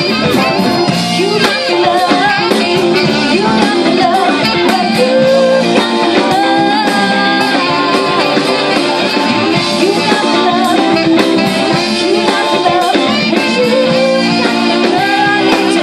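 Navy band playing live through a PA: a woman singing over electric guitar, drum kit, keyboard, saxophone and congas.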